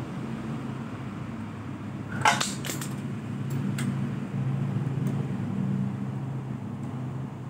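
A screwdriver and small metal parts clinking while a Vespa's intake is worked on by hand: a short sharp clatter about two seconds in, then a few light ticks, over a steady low hum.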